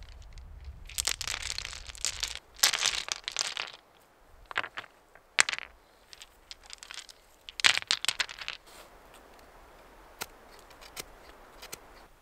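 Intermittent rustling and crinkling as a person kneels and handles things on dry forest ground, in several short bursts, followed by a few sharp clicks.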